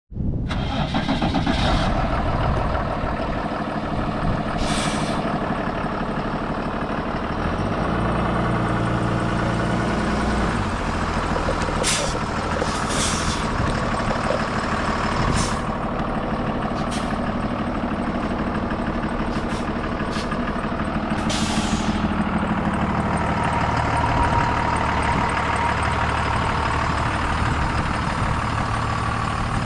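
2012 Freightliner M2 chip truck's diesel engine running and pulling at low speed, its note shifting up and down a few times. Several short, sharp hisses of air cut in over it during the first two-thirds.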